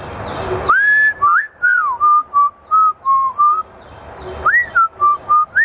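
A talking parrot whistling a tune in clear, pure notes: a rising slurred note, then a run of short steady notes, a pause, then another rising note and more short notes.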